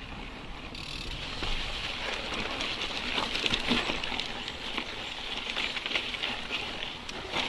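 Mountain bike rolling along a dirt singletrack: a steady rush of tyre and trail noise, with small irregular rattles and knocks from the bike over the rough ground.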